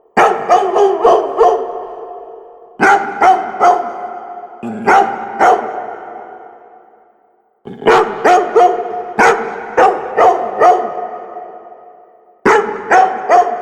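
Labrador retriever barking in five quick bursts of two to several barks each, every burst trailing off in a long echoing tail.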